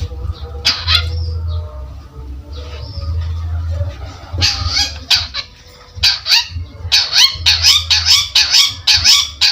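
Long-tailed shrike (cendet) singing in harsh, raspy calls. A few scattered notes come early, then from about six seconds in a quick run of repeated scratchy notes, several a second.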